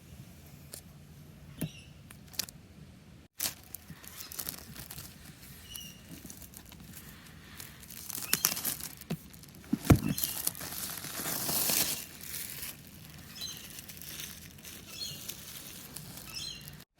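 Packaging being handled as a MacBook Pro box is opened: plastic wrap crinkling and tearing and cardboard rustling, with scattered clicks. There is one sharp knock about ten seconds in, followed by a longer rustling sweep.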